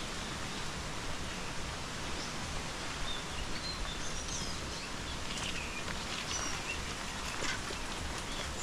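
Steady wind-and-rustle noise on a body-worn action camera's microphone during a trail run. Scattered short, high bird chirps come in from about three seconds in.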